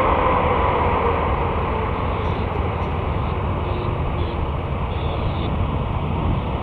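Jet engine noise from a Boeing 747-8F's GEnx-2B engines: a steady rush with a whine that falls slowly in pitch as the sound eases off slightly.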